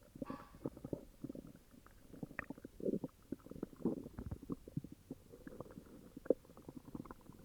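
Human stomach growling and gurgling from an upset stomach: an irregular, near-continuous run of small pops and bubbling. A higher bubbling burst comes just after the start, and a sharper pop about six seconds in.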